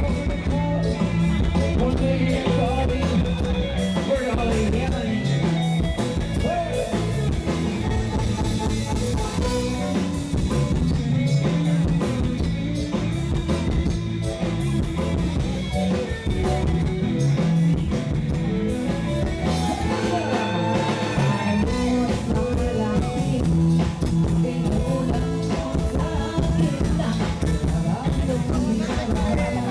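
Rock-style music with drums, guitar and a singing voice, playing steadily.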